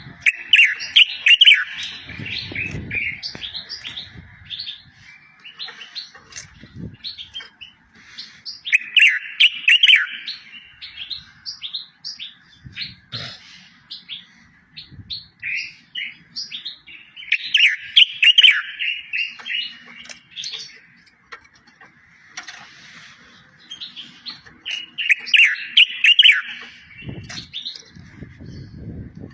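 A songbird singing: a fast phrase of sweeping, trilling notes comes four times, about every eight seconds, with scattered chirps between. This is a tutor song recording of the kind played to caged goldfinches and canaries to teach them song.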